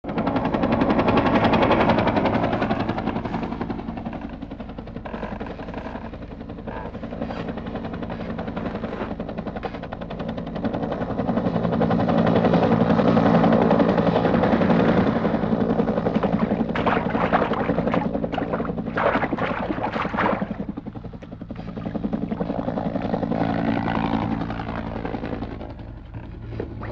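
Bell UH-1 Huey helicopter flying low, its rotor beating steadily over the engine drone, the sound swelling and fading as it passes. About two-thirds of the way through, a run of sharp cracks cuts in.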